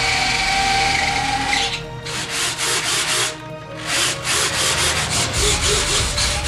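Electric retractable landing gear of a Freewing Su-35 RC jet cycling under radio control. The retract motors whir in three runs with short pauses between them. The first run carries a steady whine and lasts about a second and a half.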